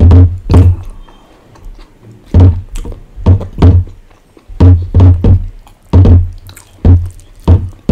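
Close-miked eating sounds: a run of loud, deep, wet thuds, roughly two a second in uneven pairs, as rice and curry are mixed by hand on a glass plate and chewed.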